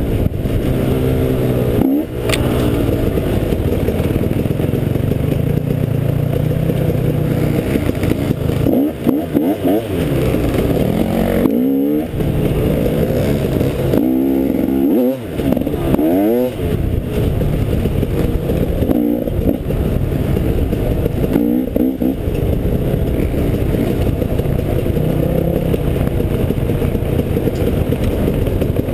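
Enduro dirt bike engine running under load, its pitch rising and falling again and again with the throttle over a steady rumble.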